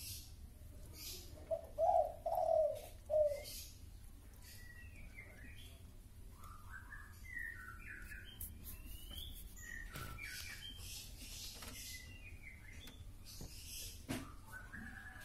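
Birds calling: a few low cooing calls about two seconds in, then higher, quicker chirps through the middle.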